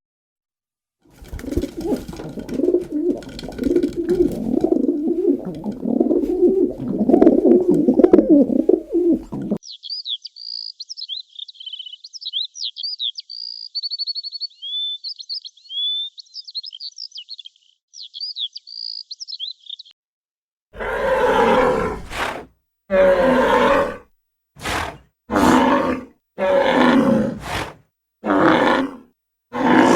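A sequence of animal sounds: low, dense animal calls for about the first nine seconds, then high bird chirping and twittering for about ten seconds, then a run of about seven short, loud animal calls with gaps between them.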